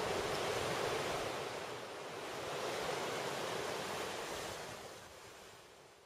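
Surf breaking and washing over a rocky shore, a steady rushing wash of waves that fades out near the end.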